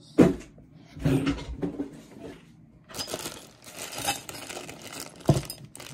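Packaging and small hardware being handled while a blacklight is unboxed: rustling with a few clinks and sharp knocks, one right at the start and one near the end.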